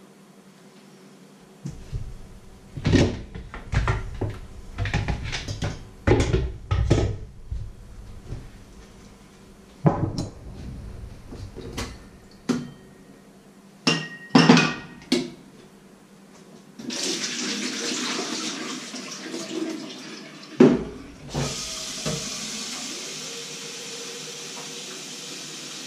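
Knocks and clunks of things being handled in a kitchen, then a kitchen tap running steadily as a kettle is filled at the sink, starting about two-thirds of the way in. A clunk interrupts the flow briefly before it runs on.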